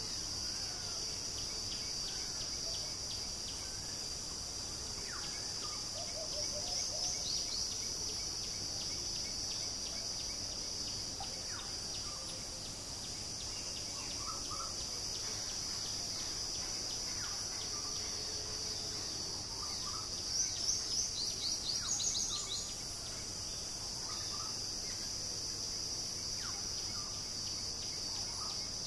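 Steady high-pitched insect drone throughout, with small birds calling over it. A quick run of short high notes comes about six seconds in, another louder run about twenty seconds in, and there are scattered single chirps between.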